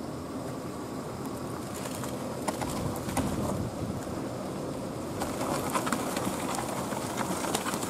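Dry pine branches cracking and snapping as a fallen tree's limbs are handled and pulled aside. The sharp cracks come in scattered clusters over a steady low rumble.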